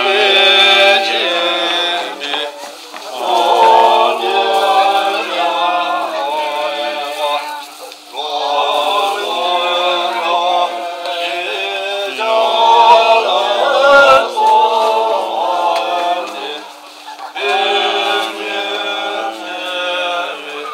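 Voices singing a chanted prayer melody together, in phrases a few seconds long separated by short breaths.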